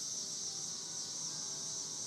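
Church bell chimes playing a tune: several clear pitched tones ring and overlap. Underneath runs a steady high-pitched hiss.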